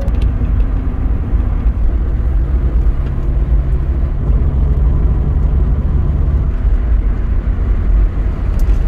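Car interior noise while driving: a low engine drone and road rumble, with a steady engine note standing out for a few seconds in the middle.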